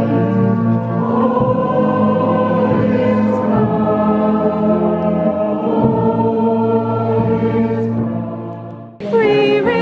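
A Christmas carol sung by a large choir and crowd, in long held notes. The singing fades near the end, then another passage of singing with a wavering pitch starts abruptly.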